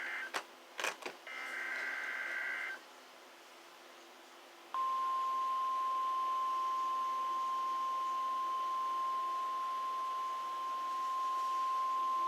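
NOAA Weather Radio Emergency Alert System test: the end of the digital SAME header bursts, a harsh buzzing data screech, sounding twice with a few clicks between, ending about 2.7 s in. After a short pause, the single steady 1050 Hz warning alarm tone starts about 5 s in and holds.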